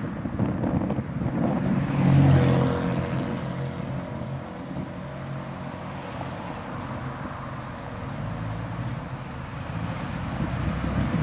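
Car driving along a street: steady engine and road noise, with the engine sound swelling louder about two seconds in.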